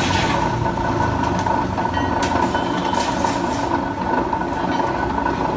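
Three-phase electric rebar cutting machine running steadily, its motor giving a constant hum with a steady whine. A couple of short sharp noises come about two and three seconds in.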